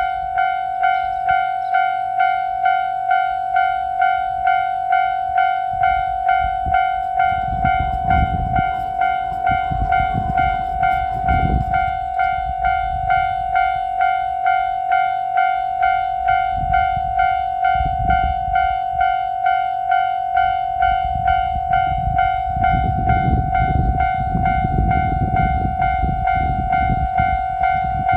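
Japanese level-crossing warning bell (踏切 "kan-kan") ringing in an even repeating electronic ding, about one and a half strokes a second. Beneath it comes the low rumble of the Nanpu limited express train going over the crossing. The rumble swells about six seconds in, again briefly, and once more toward the end.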